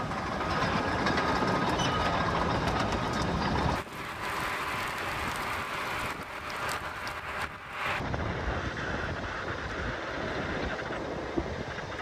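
Steady roar of a burning wildfire with wind, with a few scattered crackling pops, the sound changing abruptly about four and eight seconds in.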